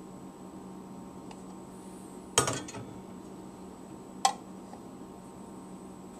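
Two sharp clinks about two seconds apart, the first louder with a brief rattle after it: a plastic measuring cup knocking against the neck of a glass flask while water is poured into it.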